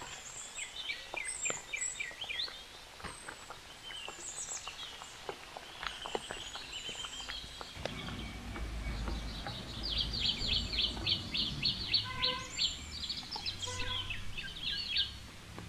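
Small birds chirping and calling, with a fast run of repeated chirps about ten seconds in. A low rumble runs for a couple of seconds in the middle.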